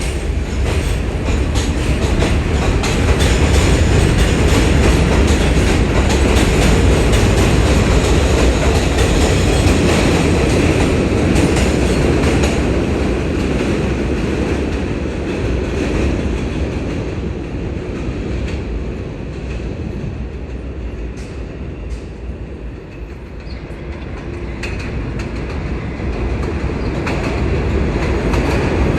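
New York City subway train running through the station, a loud rumble with the clatter of wheels over rail joints. It eases off in the middle and builds again near the end.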